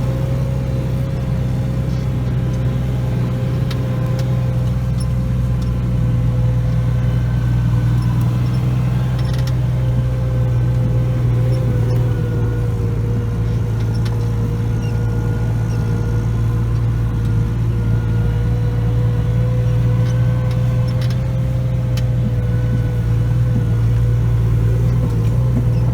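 Tractor engine running steadily with a constant low drone and a steady whine above it, heard from inside the cab while towing a sled through snow.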